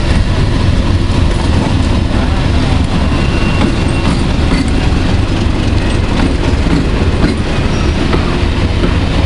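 A train on a heritage railway, a steady loud rumble with some clatter, as of a train running close by.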